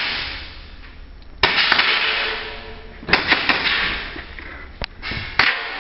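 Several sharp knocks and clacks in a large, echoing room, each trailed by a fading rush of noise: one about a second and a half in, a quick cluster around three seconds in, a single thin click near the end and another knock just after it.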